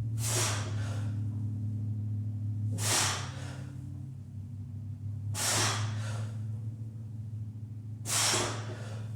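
Heavy breathing from a lifter straining through a set of Romanian deadlifts with 225: four sharp, forceful breaths about two and a half seconds apart.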